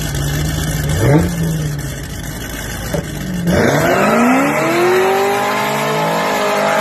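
Two cars' engines idling at the start line, blipped once about a second in, then launching hard about halfway through: engines revving up with pitch climbing as the cars accelerate away in a street drag race.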